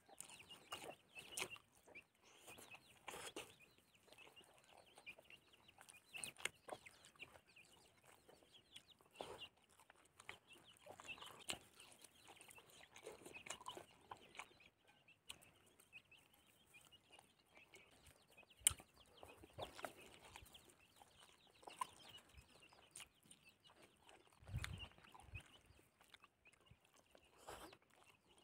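Faint eating sounds, soft chewing and lip smacks, as rice and boiled fish are eaten by hand, with chickens clucking in the background.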